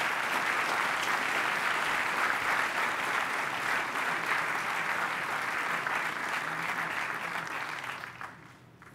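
Audience applauding steadily, dying away about eight seconds in.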